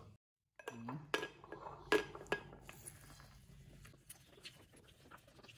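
Kitchenware handling: a plastic hand citrus juicer knocks and clinks against a glass tumbler a few times, the loudest knock about two seconds in. A lemon half is then pressed and twisted on the reamer with faint small clicks.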